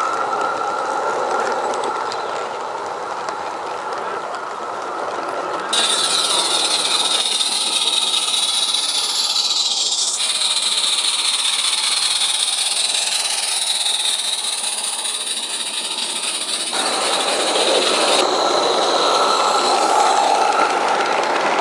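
Small 16mm-scale live-steam garden-railway trains running on their track, with steam hiss from the locomotive. The sound shifts abruptly several times, about six, ten and seventeen seconds in.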